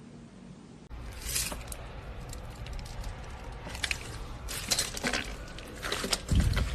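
Slime being handled, squished and poked, giving irregular crackles and sharp pops. A faint steady hiss gives way to the crackling about a second in, and there is a low thump near the end.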